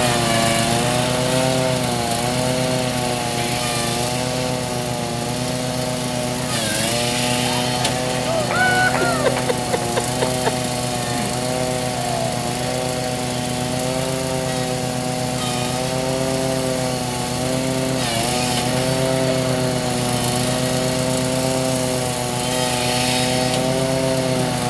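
Riding lawn mower engine running steadily under way, its pitch dipping briefly twice. A few sharp knocks come about nine to eleven seconds in.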